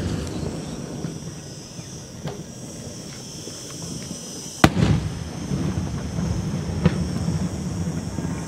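Beraq aerial firework shells bursting. One sharp, loud bang comes a little after halfway, a weaker bang about two seconds later, and fainter distant reports earlier, all over a low rumble.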